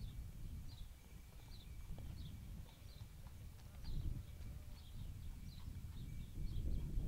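Show-jumping horse cantering on arena sand, its muffled hoofbeats under an uneven low rumble. Short high chirps, like small birds, repeat about once or twice a second throughout.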